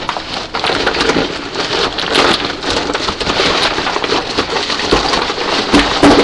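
Packaging covering being torn off and crumpled close to the microphone: a loud, continuous crackling and crinkling.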